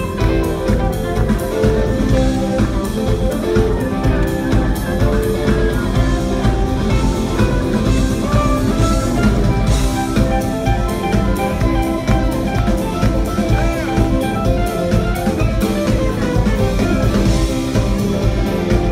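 Live rock band playing an instrumental passage: electric and acoustic guitars over a drum kit, heard from the audience.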